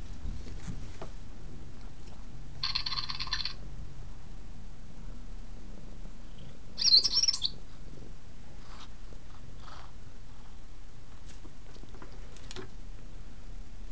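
Zhu Zhu Pets robotic toy hamster giving two short electronic chirps, a held buzzy one about three seconds in and a louder warbling one about seven seconds in, with faint clicks against the plastic track between them.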